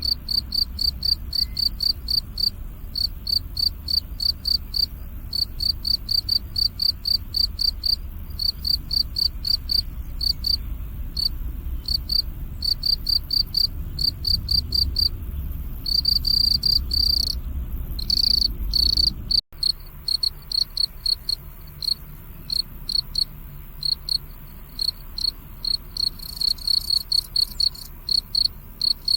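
Crickets chirping in a steady run of short, high-pitched pulses, a few a second, that briefly run together into a longer trill. A low rumble lies underneath until a momentary cut about two-thirds of the way through.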